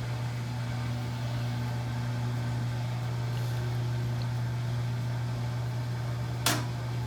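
GE laundry center washer running its test cycle with a steady low motor hum, working normally on its new lid lock. A brief sharp click about six and a half seconds in.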